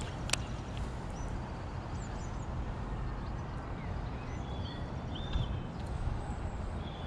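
Outdoor ambience of small birds chirping over a steady low rumble of wind on the microphone, with one sharp click about a third of a second in.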